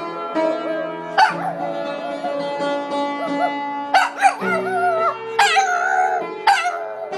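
A Boston terrier howling over keyboard music: several wavering, rising-and-falling howls, loudest in the second half, over steady held notes.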